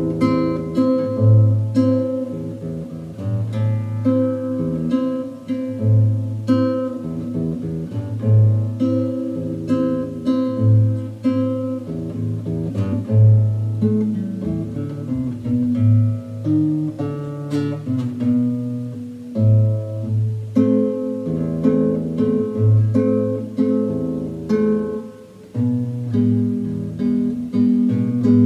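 Nylon-string classical guitar played fingerstyle as a solo piece: plucked melody and chord notes over a recurring bass line, each note ringing and fading.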